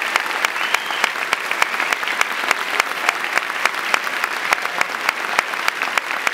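Audience applauding steadily, a dense patter of many hands with a few louder single claps from people close by standing out.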